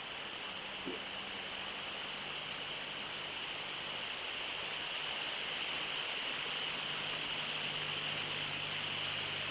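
Steady high-pitched hiss of outdoor live-cam ambience, with a faint steady low hum underneath. A single faint short call is heard about a second in.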